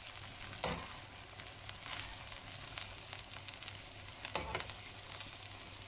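Chicken chow mein sizzling in a frying pan while metal tongs toss the noodles, with two sharp clicks of the tongs against the pan, one just under a second in and one past four seconds.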